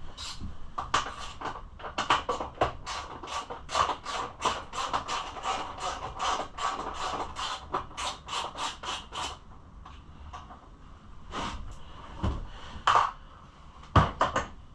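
Hand tools working on the fasteners and bodywork of a dirt bike: a quick run of short scraping clicks, several a second, for about nine seconds, then a few separate knocks.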